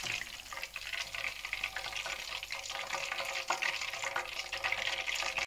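Battered cod pakoras deep-frying in hot oil in a pan: a steady, dense crackle and sizzle that cuts off suddenly at the end.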